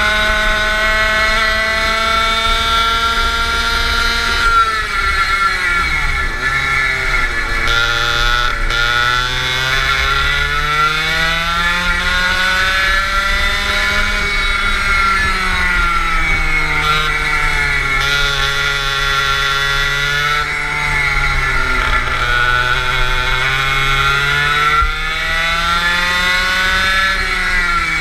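Go-kart engine heard from onboard at racing pace, its pitch climbing on the straights and dropping when the driver lifts for corners, about five seconds in, around twenty seconds and again near the end. Wind rumbles on the microphone underneath.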